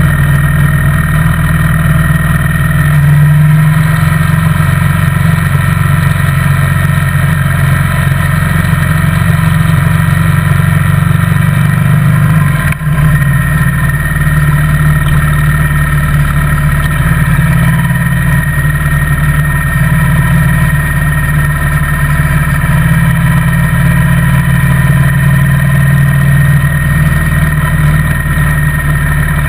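Motorcycle engine running steadily under way at cruising speed, with a brief dip in the sound about halfway through.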